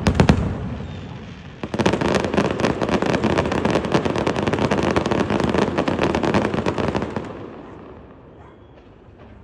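Fireworks display: a few loud bangs at the start, then from about two seconds in a dense, rapid crackle of many sharp reports for about five seconds, fading away near the end.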